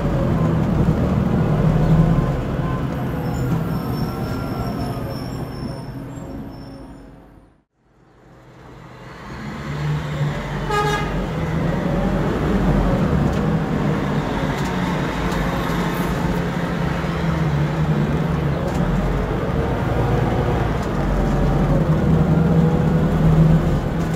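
Cabin sound aboard a Scania K280UB bus powered by compressed natural gas: the engine and road noise run steadily. The sound dips briefly to silence about eight seconds in, and a short beep sounds about eleven seconds in.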